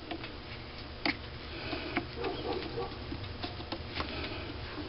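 Light metallic clicks and small knocks of hand tools working the headstock of a Sherline metal lathe as the chuck is tightened on the workpiece.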